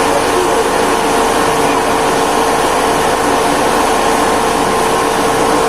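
Rice mill machinery running steadily: a loud, even mechanical drone with a constant hum.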